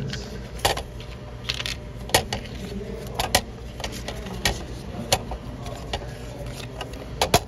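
Scattered sharp clicks and taps, about eight over several seconds, as paper tickets are pulled and knocked about in a ticket vending machine's stainless-steel delivery tray, over a low steady hum.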